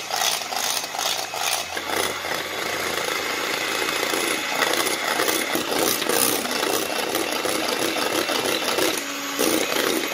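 Electric hand mixer running steadily, its beaters whipping instant coffee, sugar and water into a thick foam in a glass bowl.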